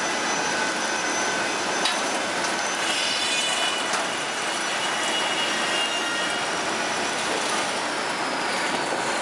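Steel roller flattening machine running as a sheet of expanded metal mesh passes between its rollers: a steady mechanical noise with faint high squeals.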